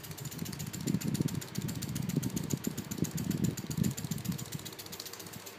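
Small 12-volt PC fan motor spinning a homemade two-blade cardboard ceiling fan, giving a rapid, uneven clicking rattle. The fan is out of balance and shakes as it turns, with something rubbing.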